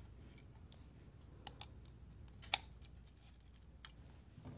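Faint light clicks of small metal parts being handled as the HBA card's mounting bracket is swapped for a larger one, over a low steady room hum. There are a few scattered clicks, and the sharpest comes about two and a half seconds in.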